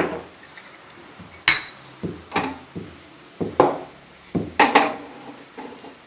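Spoon and small kitchen bowls clinking and knocking: a string of about ten separate knocks, some ringing briefly, as the mixture of peppercorns and tulsi leaves in honey is stirred and handled.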